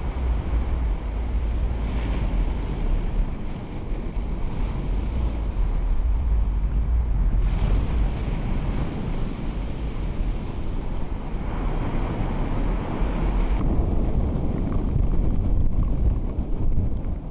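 Wind buffeting the microphone: a steady low rushing noise that drops in brightness abruptly about 14 seconds in.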